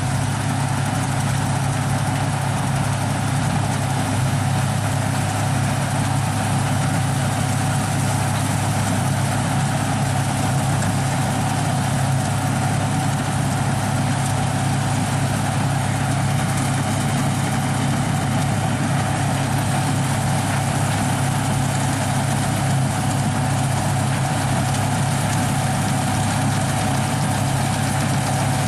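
Claas Dominator 106 combine harvester running steadily: a constant low engine drone with a steady thin whine above it and no change in speed.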